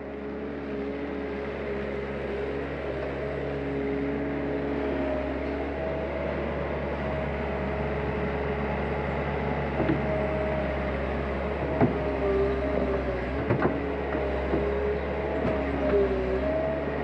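Mustang skid-steer loader's engine running steadily, its pitch wavering slightly as the loader drives and lifts its bucket. A few sharp knocks in the second half.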